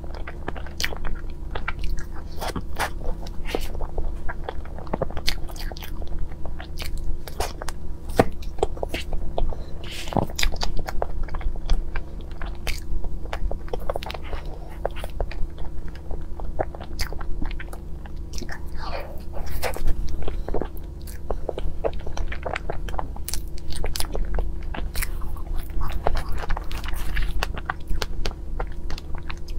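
Close-miked eating of a strawberry crepe cake: biting and chewing with many small mouth clicks throughout, picked up by a clip-on microphone, over a steady low hum.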